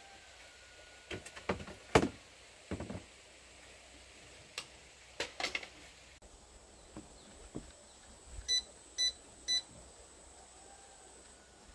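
A few knocks and clatters of handling, the loudest about two seconds in. Then an electronic device gives three short, high beeps about half a second apart.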